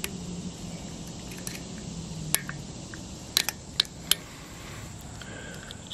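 Sharp metallic clicks and ticks, a few close together just past the middle, from a small screwdriver prying at a snap ring in a Dana 60 front locking hub.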